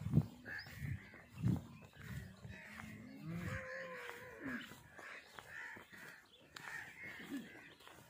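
Crows cawing repeatedly, with a few low thumps, the loudest just after the start and about a second and a half in.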